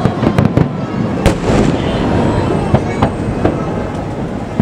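Fireworks display: shells bursting in quick succession, sharp bangs over a continuous crackle and rumble, the loudest bang about a second in.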